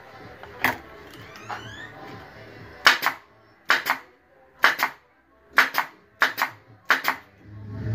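Hammer driving nails into pallet-wood boards of a desk frame: one blow, then from about three seconds in six quick double strikes, about one pair a second.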